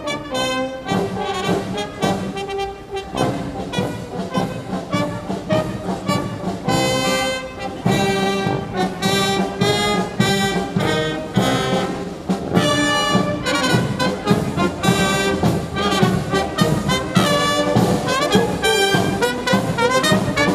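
Uniformed brass band of trumpets, tubas, euphoniums and clarinets playing a tune in a steady rhythm as it marches.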